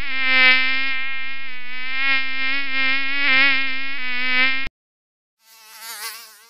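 Mosquito buzzing in flight: a loud, steady buzz that cuts off suddenly just under five seconds in, then after a short gap a fainter buzz with a wavering pitch.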